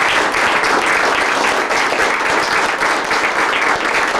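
People applauding, a steady, dense clapping.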